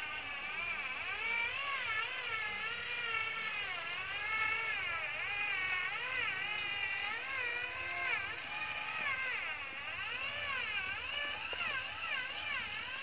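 Radio-controlled truck's electric motor and gearbox whining, the pitch rising and falling over and over as the truck crawls.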